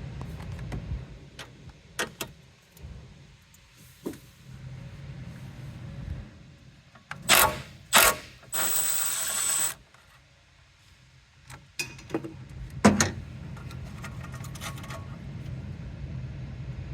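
Hand tools working loose the corroded bolt that holds a chassis ground cable: several sharp metal clicks and clinks, with a whirr of about a second in the middle, over a low steady hum.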